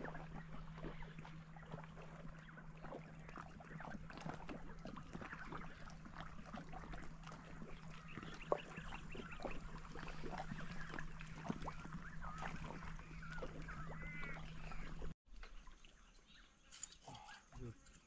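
Faint evening riverbank ambience: scattered bird chirps and calls over a steady low hum. The sound cuts off abruptly about fifteen seconds in, and a few lower calls follow.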